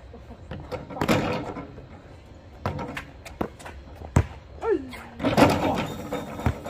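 A basketball bangs off the backboard and rim about a second in, then bounces several times as single sharp knocks on the asphalt court. Players' short shouts come in near the end.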